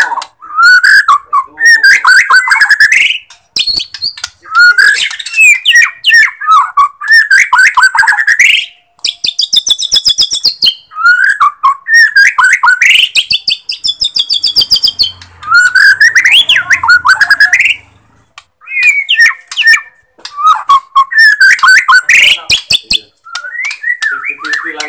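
Bornean white-rumped shama (murai batu Borneo) singing loudly in phrases of a second or two, mixing rapid high trills and rattles with slurred whistles, with short pauses between phrases.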